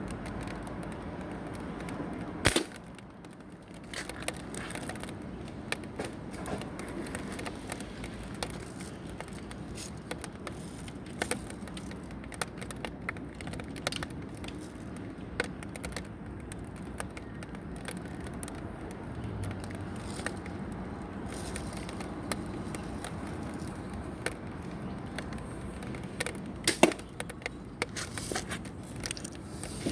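Air gun shots: one loud sharp crack a couple of seconds in and a few more cracks close together near the end, over steady background noise with many small clicks and crackles.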